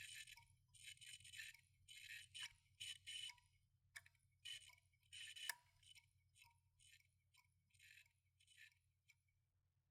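Hard drive clicking: short rasping clicks repeating irregularly about twice a second, with two sharper clicks near the middle, growing fainter over the last few seconds above a steady low hum.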